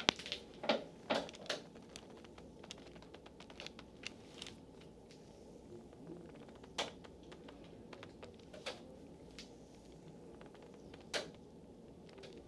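Faint scattered clicks and taps of a hands-on massage, with hands moving over skin and the massage table shifting. Several come close together in the first second and a half, then single ones every two seconds or so.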